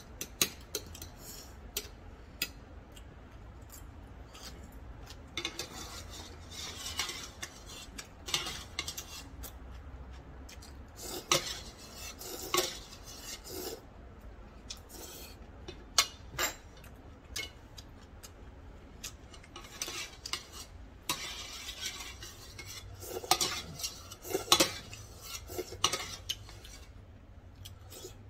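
Metal chopsticks clicking and scraping against a thin aluminium ramyeon pot, with several stretches of noodle slurping and eating in between.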